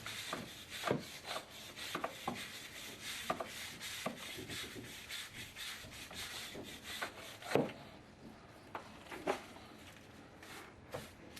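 Brisk, irregular scraping strokes against a hard surface. They ease off after about seven and a half seconds, leaving a few scattered knocks.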